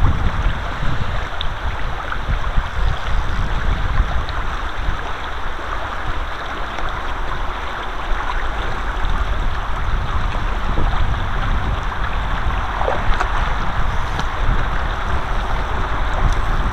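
Steady rush of a flowing river, with a low, fluctuating rumble of wind buffeting the microphone.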